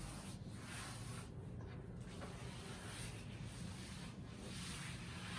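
Cloth duster rubbing across a chalkboard in repeated wiping strokes.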